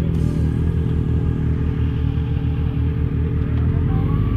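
Yamaha XJ6's inline-four engine running steadily at low revs, a low pulsing exhaust note.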